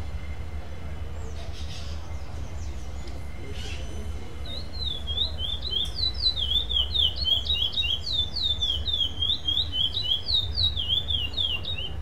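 A black curió (chestnut-bellied seed-finch) singing its competition song without repetition: a fast, loud string of clear slurred whistles that begins about four and a half seconds in and carries on to the end. A steady low rumble lies underneath.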